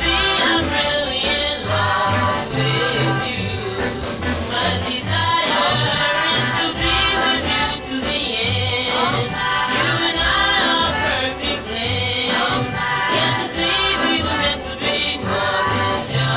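Early-1960s girl-group pop song: women singing in harmony over an instrumental backing with a steady low bass line.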